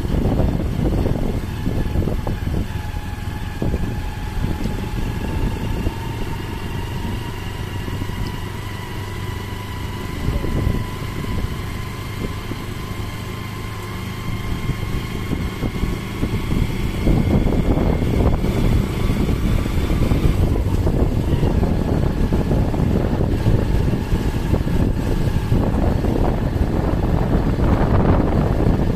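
Motorcycle running along a concrete road, with a steady low rumble and a thin whine that rises slowly in pitch over the first twenty seconds. After that, rougher wind and road noise grows louder.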